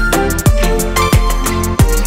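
Background music: an electronic track with a deep kick drum that drops in pitch, about three beats every two seconds, under short synth melody notes.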